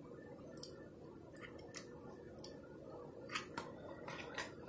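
Scattered light clicks and taps, about eight over a few seconds, from a mini hot glue gun and small painted dollhouse furniture pieces being handled during gluing.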